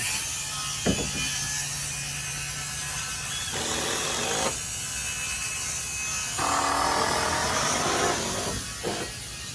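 A machine running with a steady rattling, ratcheting clatter, with a sharp knock about a second in and louder stretches near the middle and toward the end.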